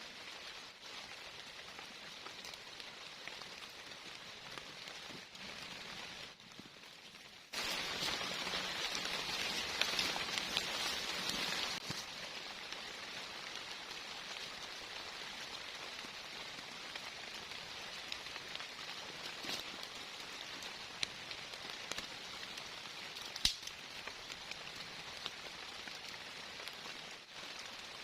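Heavy rain falling steadily, with occasional sharper drops tapping close by. The rain turns suddenly louder for a few seconds about a quarter of the way in, then settles back.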